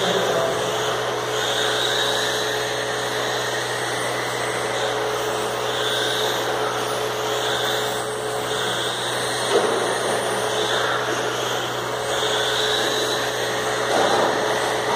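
Electric radio-controlled racing cars running on an indoor carpet track: the whine of motors and drivetrains, along with tyre noise, rises and falls every couple of seconds as cars pass, over a steady low hum. A sharp knock comes about nine and a half seconds in.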